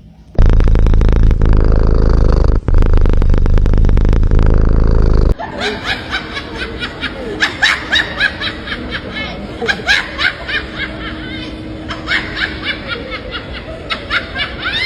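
A loud, distorted rumble for about five seconds, then a person's snickering laughter in quick short bursts.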